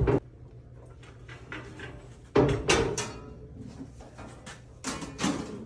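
Hand sheet-metal brake clunking as its clamp and bending leaf are worked to fold a 1-inch flange on a sheet-metal end cap up to 90 degrees. Several loud metallic knocks come a couple at a time: one at the start, two about two and a half seconds in, and two near the end.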